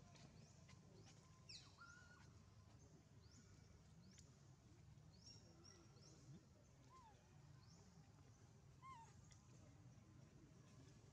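Near silence: faint outdoor ambience with scattered quick high chirps throughout, and two short, lower curved calls about seven and nine seconds in.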